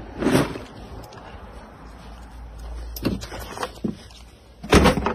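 Hard plastic tool case being handled and set down, giving a few knocks and bumps, with the loudest thump near the end.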